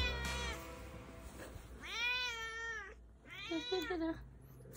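Domestic cat meowing three times: a short call at the start, then two long, drawn-out meows about two and three and a half seconds in, each rising then falling in pitch.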